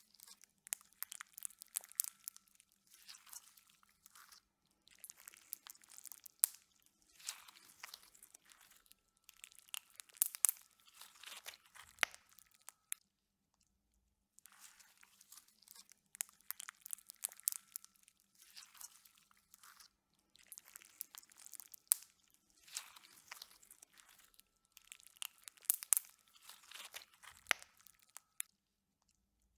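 Slime being squeezed and squished, crackling and popping in bursts of rapid small clicks about a second or two long. There is a short pause about 13 seconds in, after which the same stretch of squishing repeats.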